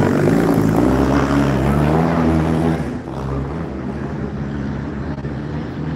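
Racing engine of a motocross sidecar outfit on the circuit, running loud at a steady pitch, then dropping away about three seconds in to a lower engine drone.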